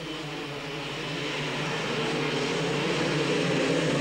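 A pack of motocross bikes revving together at the start and pulling away, the massed engines getting steadily louder.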